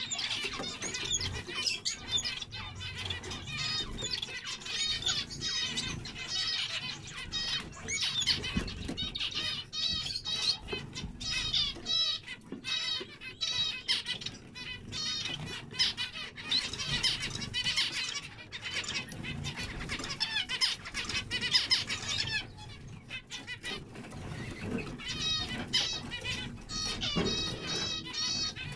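A flock of zebra finches calling and singing together, dense and overlapping chirps and repeated song phrases, with a brief lull about three-quarters of the way through. Wing flutters sound as birds flit between perches.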